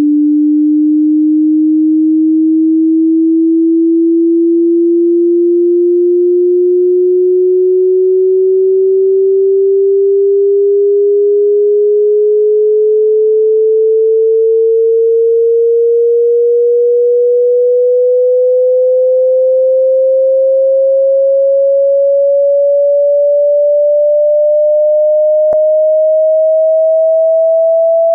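Pure sine test tone from a 20 Hz to 20,000 Hz hearing-test frequency sweep, a single steady tone gliding slowly and evenly upward in pitch.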